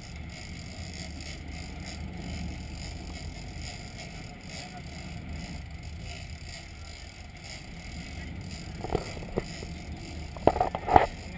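Steady low rumble of a sportfishing boat's engines with water washing against the stern. A few sharp knocks sound near the end.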